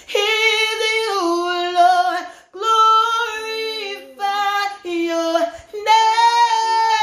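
A woman singing a worship song a cappella, holding long notes with vibrato over about four phrases.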